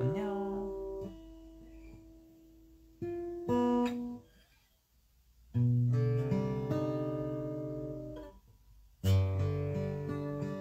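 Acoustic guitar played in separate strummed chords, each left to ring and fade, with gaps between them. A louder chord about nine seconds in leads into a quicker run of notes.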